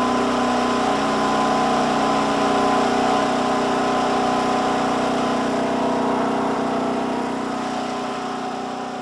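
Snow thrower's small engine running steadily, fading out slowly over the last few seconds.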